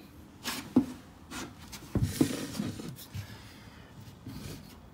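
Handling noises: a few scraping and rubbing sweeps with two sharp knocks, about one and two seconds in, as PVC drain pipe is moved into place and a person shifts about on a plywood subfloor.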